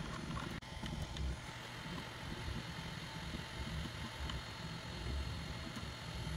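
Bambu Lab 3D printer running mid-print, its motors and fans making a steady low whirring with uneven swells as the print head moves. The sound drops out for an instant just after the start.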